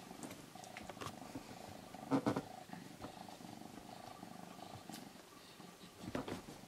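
Domestic calico cat purring steadily, with two brief louder noises, one about two seconds in and one near the end.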